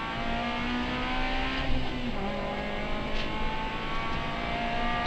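Honda Civic Type-R FN2's four-cylinder engine pulling hard down a straight, heard from inside the rally car's cabin with road noise underneath. Its pitch drops a step about two seconds in as it shifts up, then climbs slowly again.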